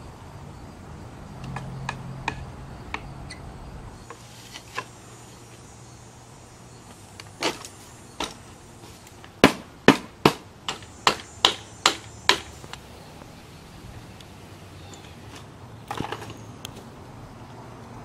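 Sharp wooden knocks from parts of a homemade wooden sawmill frame being fitted and knocked together. The loudest is a quick run of about eight knocks, roughly three a second, in the middle, with scattered lighter clicks and taps before and after.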